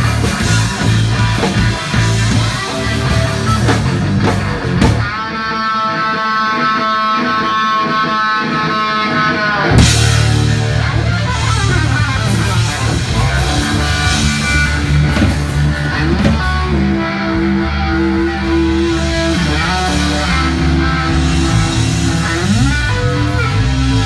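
Live blues-rock band playing an instrumental passage: electric guitar lead over drum kit and bass guitar. About five seconds in the band drops out and a single electric guitar note is held and rings alone for about five seconds, then the drums and bass come back in together and the guitar plays lead lines over them.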